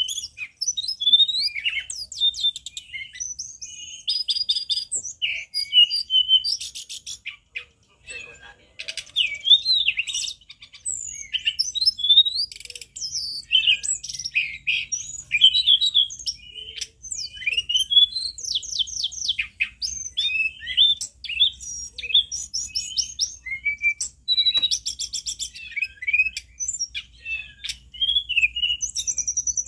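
Hill blue flycatcher singing a long, varied song of quick slurred whistles and rapid trills, almost without pause.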